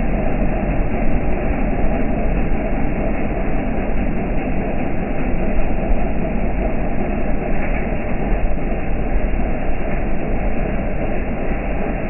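Rain falling steadily: a loud, unbroken rushing noise.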